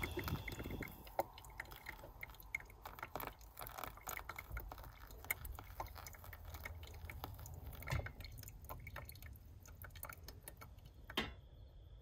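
Water poured from a stainless cup onto coffee grounds in a stainless steel pour-over filter, trickling and dripping with many small irregular ticks. A single sharper knock comes just before the end.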